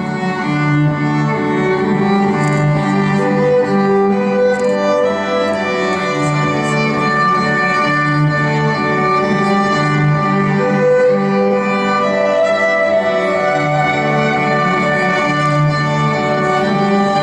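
Live violin music: sustained bowed notes layered over a repeating low string figure, with no singing.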